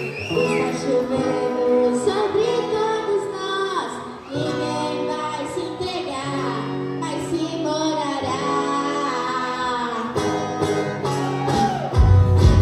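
A female voice singing a slow melody over instrumental accompaniment with held bass notes; a heavy, louder bass comes in near the end.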